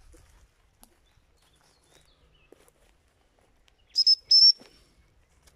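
Gundog whistle blown twice about four seconds in: a short pip, then a slightly longer one, both loud, high and breathy, giving a whistle command to a working springer spaniel.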